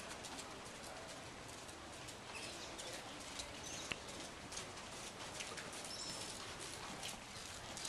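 A horse trotting on sand arena footing: a steady rhythm of soft hoofbeats, with a few short high bird chirps.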